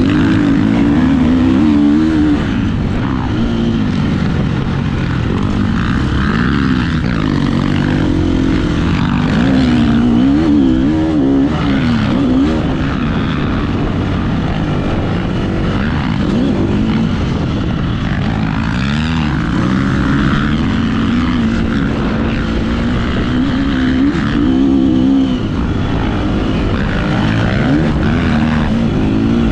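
KTM 350 SX-F four-stroke single-cylinder motocross engine revving up and down repeatedly as the rider throttles on and off around the track, with wind rush on the on-board microphone.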